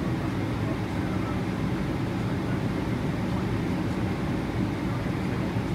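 Steady low drone inside the cabin of a Boeing 777-300ER taxiing, its GE90-115B turbofans at low taxi thrust, heard from a window seat beside the engine, with a faint steady hum underneath.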